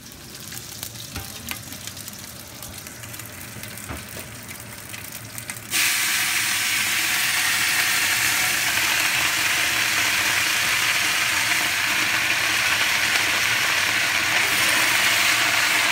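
Chopped Napa cabbage sizzling in hot oil in a stainless steel pot. A few soft clicks and rustles at first, then about six seconds in a loud, steady sizzle starts suddenly and holds.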